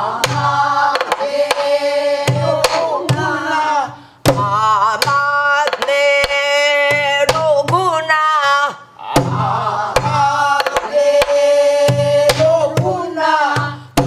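A woman singing a Namdo minyo (Korean southern folk song) in a strong, wavering voice, accompanying herself on a buk, a Korean barrel drum, with sharp stick strokes. The singing breaks off briefly twice, about four and nine seconds in.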